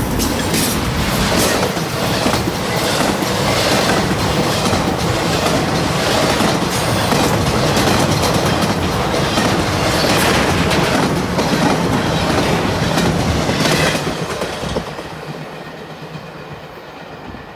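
Freight train cars rolling past, wheels clacking over rail joints amid a steady rumble, until the end of the train passes about fourteen seconds in and the sound falls away.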